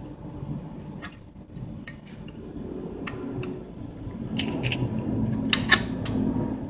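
Butane gas canister being fitted into a portable card-type gas stove's connector: a series of small metal clicks and scrapes, the loudest pair about five and a half seconds in, over a low background hum.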